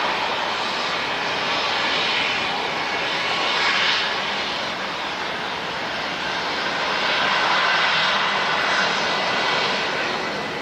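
Jet airliner engines running, a loud rushing noise that swells and eases a few times.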